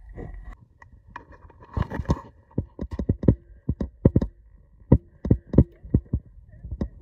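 Rapid, irregular knocks and clicks over a low rumble: handling noise of a hand-held camera carried by a diver in scuba gear.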